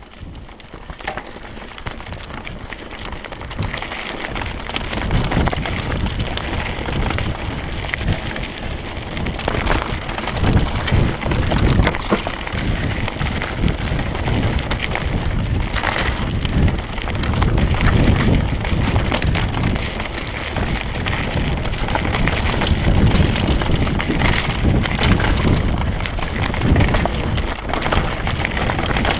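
Trek Remedy 9 mountain bike ridden fast over a rocky, gravelly trail: tyres crunching over loose stones, with rattles and knocks from the bike over bumps. Wind rumbles on the camera microphone throughout. The noise builds over the first few seconds as speed picks up, then stays loud.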